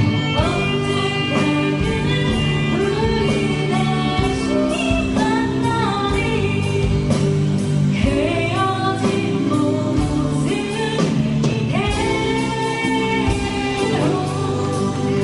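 A song played live by a band, with a lead vocal over held instrumental notes and a steady drum beat.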